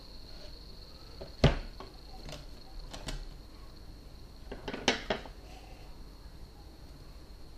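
Kitchen knife and small cutting board clicking and knocking against each other and the counter as they are picked up and handled over a mixing bowl: one sharp knock about a second and a half in, a few lighter clicks, then a quick run of clicks around five seconds in. A faint steady high whine sits underneath.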